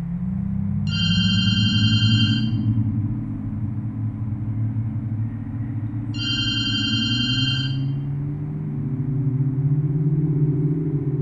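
A telephone rings twice, each ring about a second and a half long and about five seconds apart, over a low, slowly shifting droning music.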